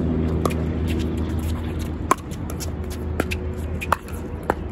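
Pickleball paddles striking the ball in a rally: about five sharp pops at uneven intervals. A steady low engine hum from a vehicle runs underneath and fades away.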